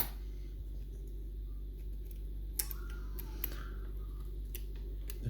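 Light clicks and taps of small metal levers from a dismantled lever mortice lock being handled, one sharp click at the start and a few scattered ones in the middle, over a steady low hum.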